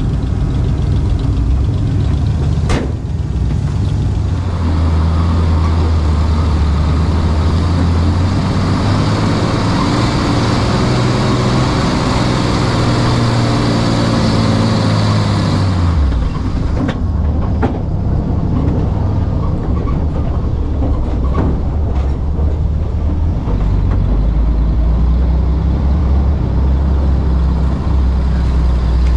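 Dodge M37 truck's engine pulling under load as the truck drives off-road, heard close from the hood. It runs harder through the middle, then drops off sharply about two-thirds of the way in to a lower, steady run.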